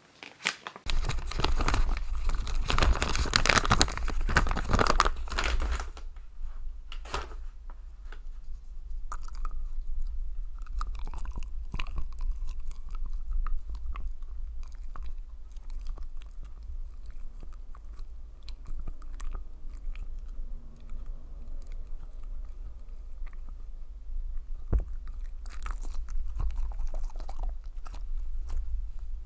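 Small dog chewing a Greenies dental treat close to a microphone: crunching and wet chewing with many short clicks of teeth. It is loudest and densest in the first six seconds.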